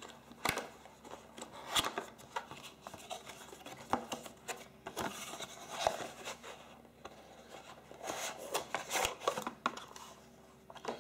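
Cardboard packaging being handled and opened by hand: the box slid out of its sleeve and the lid lifted, with scraping and rustling of card on card and several light taps and clicks.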